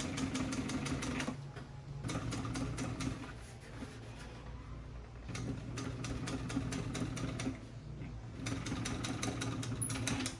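Industrial sewing machine top-stitching vinyl upholstery: rapid, even needle strokes in four runs with short pauses between them, over the steady hum of its motor.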